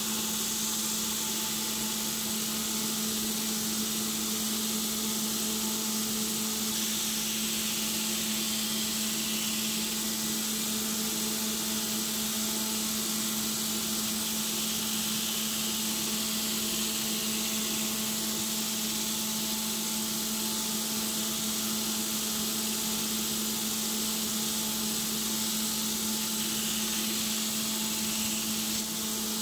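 Belt grinder running steadily, with a steady motor hum under the hiss of the abrasive belt grinding a steel hatchet head held against it in tongs.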